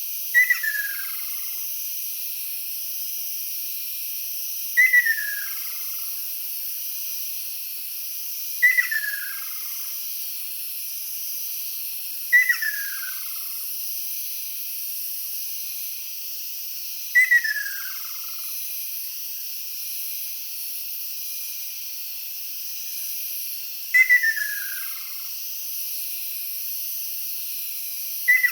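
Ryukyu ruddy kingfisher calling: a falling trill of about a second, repeated seven times at intervals of four to seven seconds, over a steady high hiss.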